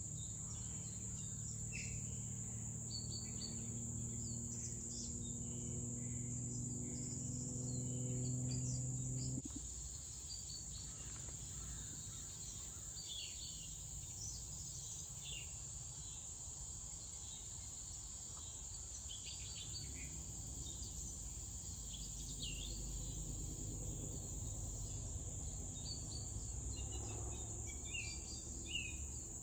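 Steady high-pitched insect chorus of crickets trilling, with scattered short bird chirps. A low steady hum sounds for about the first nine seconds, growing slightly louder, then cuts off suddenly.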